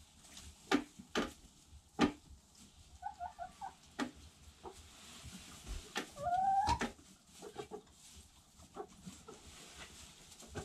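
Domestic hens clucking, with a short run of clucks about three seconds in and a louder rising call about six and a half seconds in. Several sharp knocks and clicks are heard throughout.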